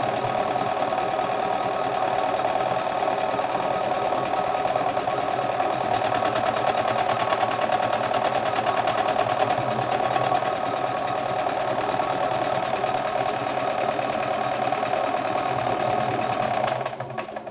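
CNY E960 computerised sewing machine running at a steady speed, stitching an automatic buttonhole with fast, even needle strokes, then stopping abruptly near the end.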